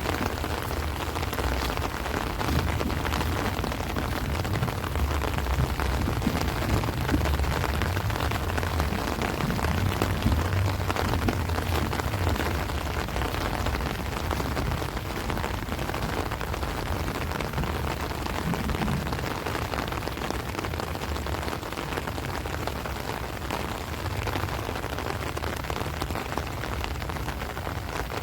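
Heavy rain falling steadily on rice plants and trees, a dense even hiss, with a low rumble of wind gusts that swells and fades.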